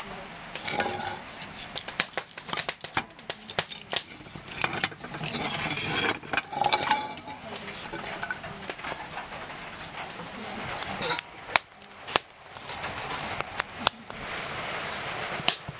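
Clinks and knocks of a frying pan and kitchen utensils on a wood-burning stove top, with butter being rubbed around the pan about halfway through. Near the end the sound gives way to a steady crackle of firewood burning in the stove.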